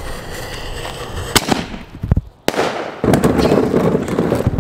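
A lit ground firework fizzing, then going off with a sharp crack about a second and a half in, followed by a few thumps and a second crack. From about three seconds in, a steady low rumble as a plastic wheeled trash can is rolled over pavement.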